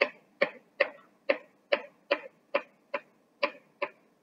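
Kitchen knife chopping a spring onion on a plastic cutting board: about ten even chops, roughly two and a half a second.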